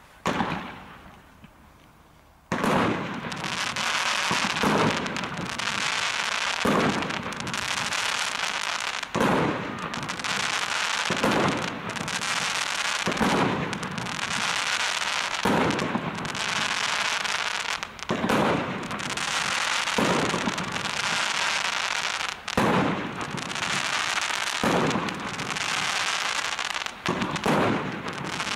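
Silver Coco To Red (JW65) multi-shot firework cake firing about a dozen shots, one every two seconds or so, starting about two and a half seconds in. Each shot bursts into a crackling palm, and the crackle runs on without a break between the launches.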